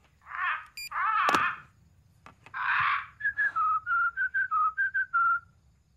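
Pet bird calling a few short rough notes, then whistling a quick run of about ten short, clear notes that step up and down in pitch. The tune is a phone number the bird has learned.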